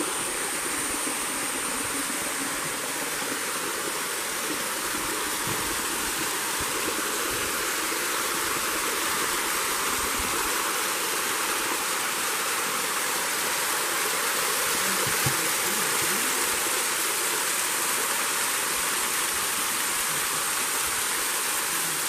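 Waterfall pouring down a rock face into a pool: a steady, even wash of falling water.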